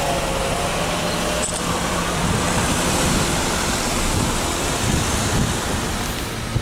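Steady traffic noise from a long queue of cars idling and inching along.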